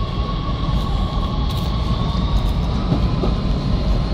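Oslo Metro MX3000 electric subway train running past: a steady rumble of wheels on rails, with a thin steady high tone above it.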